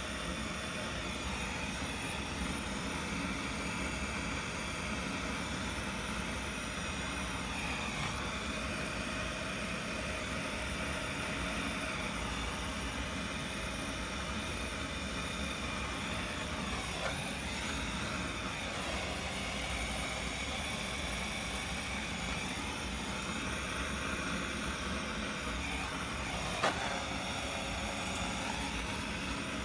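Gas soldering torch burning with a steady rushing hiss while heating a solder joint. Two faint clicks, the sharper one a few seconds before the end.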